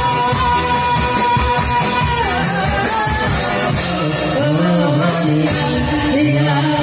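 Merawis singing, Gayo Islamic sung verse. A voice holds a long high note for about two seconds, then the melody steps down, and lower sung phrases follow in the second half.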